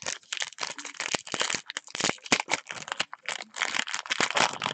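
Foil trading-card pack being crinkled and torn open by hand, a dense run of sharp rustles and crinkles.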